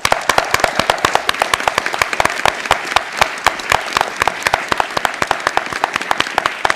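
Audience applauding: many people clapping steadily and densely.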